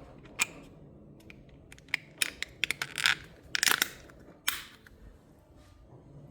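The shadow light's top casing being fitted by hand: a scattered series of sharp clicks and short scraping handling sounds, busiest in the middle.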